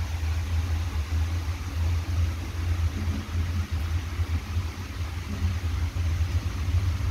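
Heavy rain falling, a steady hiss of drops on glass and a wet ledge, over a strong, uneven low rumble.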